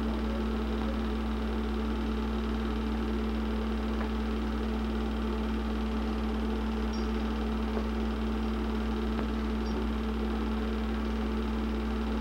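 Film projector running: its motor and fan make a steady, unchanging hum with a constant low drone.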